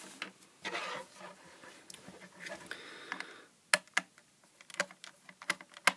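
Small screwdriver working a screw out of the casing of a 28-LED USB lamp while the lamp is handled: a short scraping sound, then a run of small sharp clicks and taps over the last two seconds.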